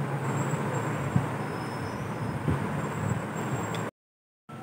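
Steady background rumble and hiss with two light clicks of a metal spoon against a glass mixing bowl as red chili powder is tipped into the batter; the sound cuts out abruptly near the end.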